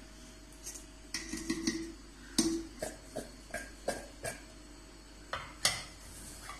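Stainless steel bowls clinking: flour is tipped from a small steel bowl into a steel mixing bowl of boiled baby corn, and the corn is tossed in it by hand, giving about a dozen short, sharp taps, some with a faint metallic ring.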